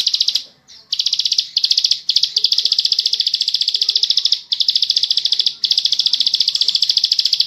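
Ciblek sawah (plain prinia) singing its long, fast buzzing trill: high, rapid notes run together in a string of trills, the longest over two seconds, with brief breaks between them.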